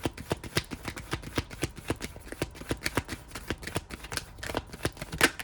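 Tarot cards being shuffled by hand: a rapid run of crisp card clicks and flicks, with one louder snap near the end.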